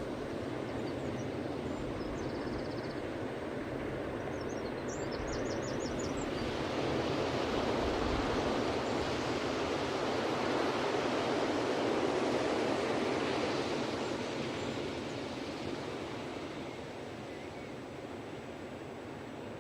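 Ocean waves washing onto a beach, the surf swelling to a peak and then easing back. About five seconds in there is a short, faint, high trill of bird chirps.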